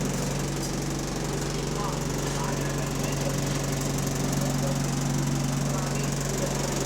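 Transit bus engine running steadily with a low, even hum; the engine has a rod knock.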